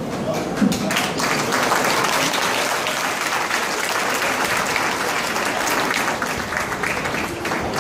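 Audience applauding in a hall, the clapping swelling about a second in and then holding steady.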